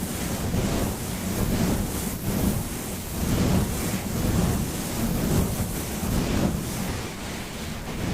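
A steady rushing, rumbling noise with uneven swells about once a second.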